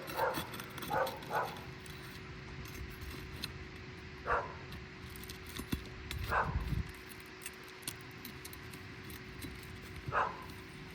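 A dog barking: three quick barks near the start, then single barks every two to four seconds, over a faint steady hum.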